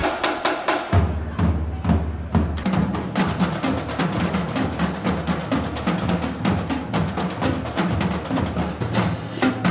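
A marching drumline playing a fast rhythm on snare drums, multi-tenor drums and bass drums, with crash cymbals.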